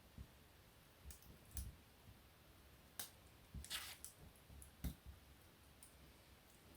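Wood fire burning in a fireplace: sparse, sharp crackles and pops, about half a dozen, with one longer crackle in the middle, over a faint low hiss.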